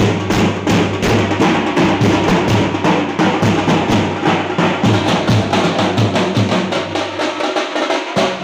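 A drum troupe beating large steel-shelled cylindrical drums with sticks: loud, fast, continuous rolls of strikes over a deep, regular bass beat.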